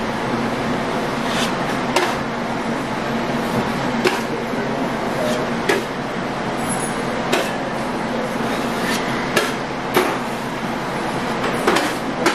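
Drywall knife tapping and scraping against the wall while setting-type joint compound is packed into a gap at the base of the wall: a sharp tap every second or two over a steady rushing noise.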